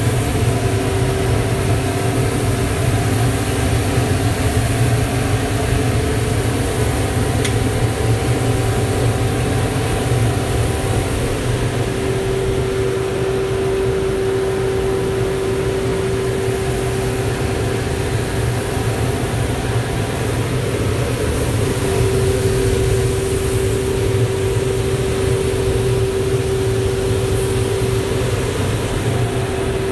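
Commercial drum coffee roaster running: a steady hum of its fans and motors with a constant mid-pitched tone, while the cooling tray's stirring arms turn the freshly roasted beans.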